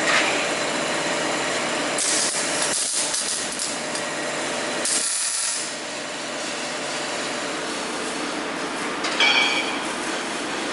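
Metal being worked with tools during a welding test: a steady rasping, scraping noise, with short hissing bursts about two seconds in, about five seconds in and near the end.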